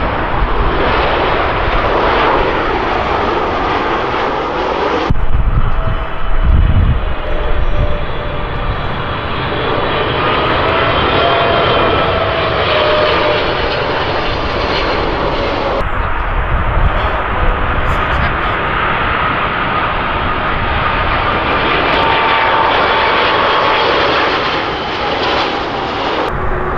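Jet airliners on landing approach, a Boeing 737-800, then a Boeing 777, then a four-engined Boeing 747-400, passing low overhead. Their engines make a steady loud noise with whining tones that slowly drift in pitch. The sound changes abruptly about 5 and 16 seconds in as one aircraft gives way to the next.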